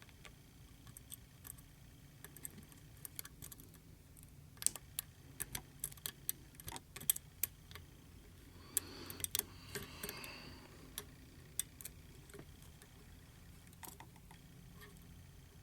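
Hook pick and tension wrench working the sliders inside a Bell slider lock: scattered small metallic clicks and ticks, with a denser scraping rattle of about two seconds a little past the middle.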